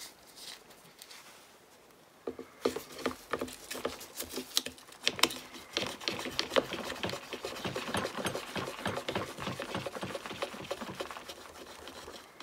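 An M1 chamber brush fitted with a cleaning patch being worked back and forth in an M1 Garand's chamber, giving a quick, uneven run of scratchy scrubbing strokes and small clicks. The scrubbing starts about two seconds in.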